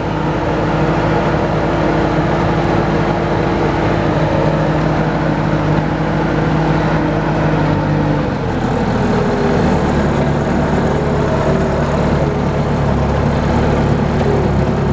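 Engine of a log-handling loader machine running steadily while the operator works the loader. Its note shifts about eight seconds in, settling into a lower, heavier hum.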